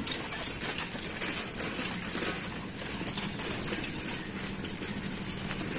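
Street noise with an engine running, a low steady hum setting in about two seconds in, under quick light clicking.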